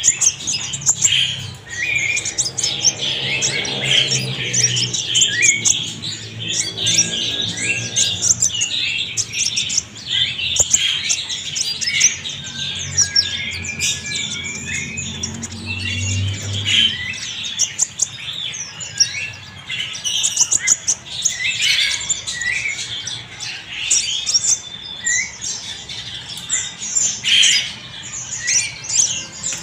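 Kolibri ninja (konin) sunbird calling in dense, rapid high chirps and twitters with short squawks and brief sliding whistles, without a break. A low hum sits underneath for a few seconds twice in the first half.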